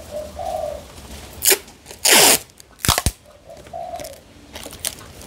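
Handling noises: a click, a short loud rustle a moment later, then two sharp knocks close together. A bird calls faintly twice in the background.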